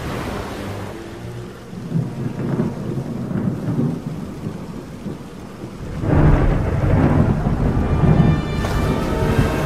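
Storm sound effect: rain with rolling thunder, building to a loud rumbling thunderclap about six seconds in that dies away over the next two or three seconds.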